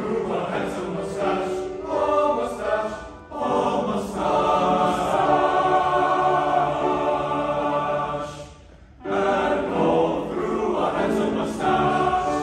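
Choir singing sustained chords in harmony, with a short break about nine seconds in before the singing resumes.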